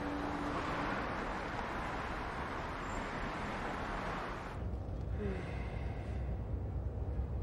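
Steady noise of city street traffic passing by. About four and a half seconds in it changes to the low rumble of road noise inside a moving car's cabin.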